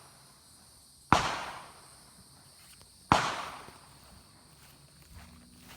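Two rifle shots about two seconds apart from a custom-built AR-15 fitted with a muzzle brake. Each shot is a sharp crack that trails off over about a second.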